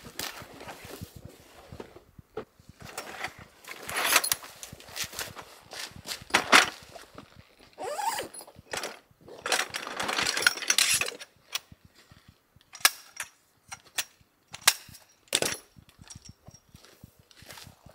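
Hands-on handling of camping gear: nylon rustling as a stuff sack is opened and its contents pulled out, with sharp clicks and knocks as tarp pole sections are fitted together. The clicks grow sparser and more spaced toward the end.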